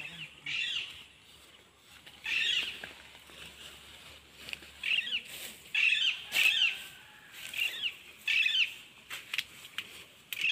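Footsteps brushing through tall grass and weeds, in short separate swishes every second or so, with a couple of pauses.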